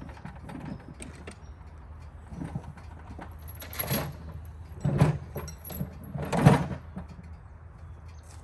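Metal clanking and rattling, three louder clanks about four, five and six and a half seconds in with lighter knocks between, over a steady low engine hum.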